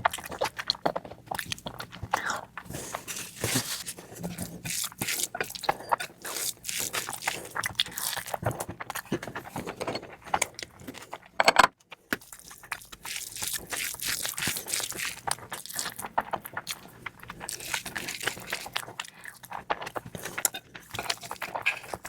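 Close-miked eating sounds: wet chewing, lip smacks and crunchy bites of curry, rice and bread, in a dense irregular run of clicks and smacks. There is a loud bite followed by a brief gap about halfway through.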